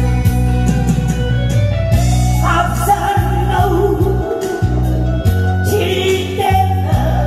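A man singing a slow song over instrumental accompaniment with a steady bass line and a regular drum beat.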